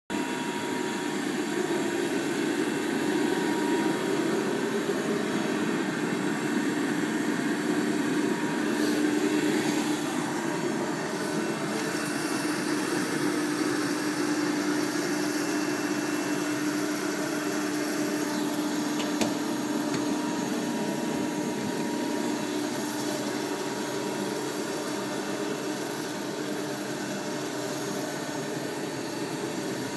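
Hydraulic pump and motor of an Adira upstroker press brake running steadily, a continuous mechanical hum.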